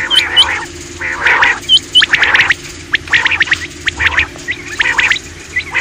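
Common quail calling in quick repeated bursts: short, sharp, upswept high notes, often in pairs, mixed with harsh, rapid chattering calls.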